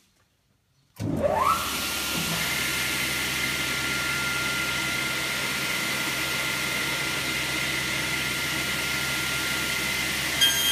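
Sliding table saw switched on about a second in: its motor and blade spin up with a rising whine, then run steadily at speed. Near the end a short knock and higher tones join in.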